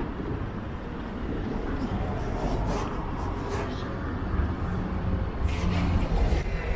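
Town street noise with cars passing, two swells of passing traffic about two and a half and five and a half seconds in, over a low rumble of wind on the microphone.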